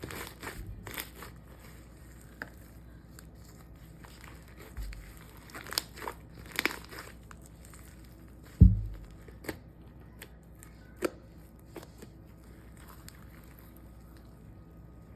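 Slime being mixed and worked by hand, giving scattered crinkling, crackling sounds. There is one loud low thump about two-thirds of the way through, and the sounds thin out near the end.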